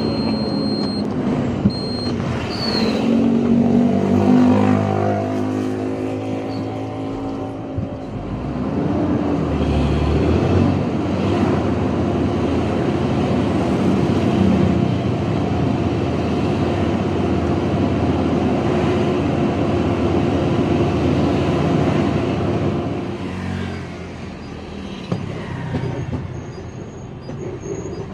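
Truck engine running while the vehicle drives. Its pitch rises and shifts over the first several seconds as it pulls away, then it holds a steady drone with road noise, and it eases off and gets quieter about 23 seconds in.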